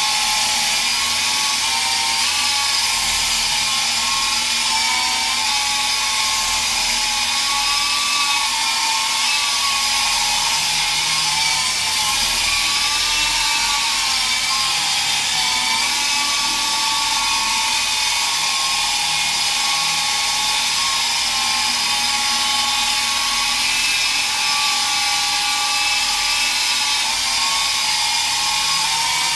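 T-34 radio-controlled helicopter in hovering flight: its battery-powered electric motor and rotor give a steady high whine whose pitch wavers slightly up and down.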